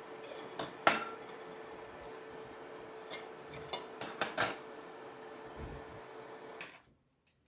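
Metal utensil clinking and tapping against a plate or pan while sauce is spread over a sandwich, a few scattered light clicks over a steady faint hum, with a soft thud near the end.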